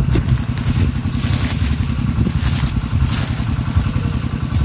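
A small engine running steadily with a fast, even low chug, with a few short scrapes over it.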